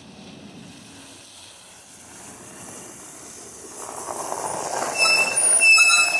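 Gillig low-floor city bus approaching and pulling in to a stop, its running noise growing louder from about four seconds in. About five seconds in, its brakes squeal with several high steady tones as it comes to a halt.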